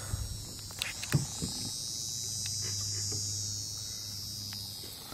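A high, buzzing insect drone swells to its loudest partway through and fades near the end. A few light knocks come about a second in.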